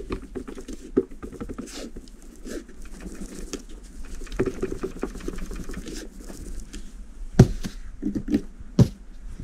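Plastic top rail (hinged feed cover) of an airsoft FN MK46 machine gun replica being pushed side to side by hand, giving many small clicks and creaks as it shifts on its hinge and clips. Two sharper knocks come near the end.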